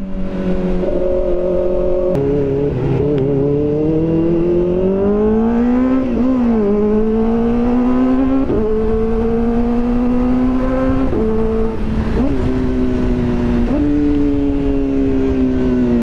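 Kawasaki ZX-4RR's 399 cc inline-four through an aftermarket Zeus titanium-carbon muffler, ridden hard. The exhaust note rises and falls with the throttle, climbing steadily for a few seconds, with several sudden steps in pitch.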